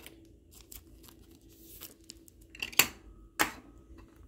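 Chrome trading cards being handled and shuffled by hand: faint rustling and sliding with small ticks, and two sharp clicks a little over half a second apart near the middle of the stretch.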